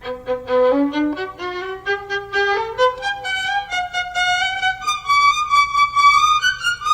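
Background music: a violin playing a melody of short notes that climb step by step in pitch, then settling on a long held high note near the end.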